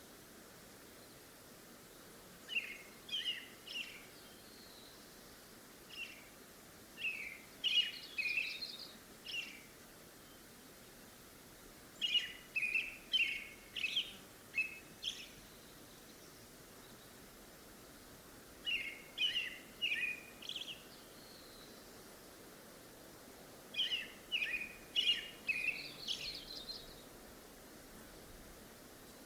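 A songbird singing the same short phrase of quick, clear notes over and over, about five times, with pauses of a few seconds between phrases, over a faint steady outdoor background hiss.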